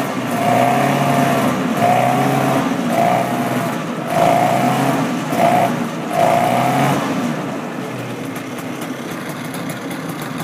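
1965 Ski-Doo snowmobile's two-stroke engine, running again after storage since 1973, blipped on the throttle about once a second, six times, then settling to a steady idle about seven seconds in.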